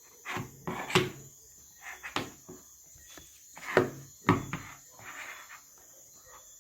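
A handful of sharp plastic clicks and knocks from handling a compact digital camera as its flip-out screen is swung open and turned.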